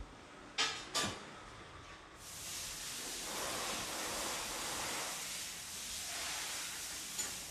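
Two sharp clicks about half a second and a second in, then from about two seconds in a steady hiss of anti-rust aerosol being sprayed onto the front strut tower.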